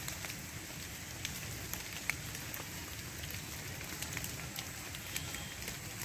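Steady rain falling on leaves, with many individual drops ticking at irregular intervals over a constant hiss.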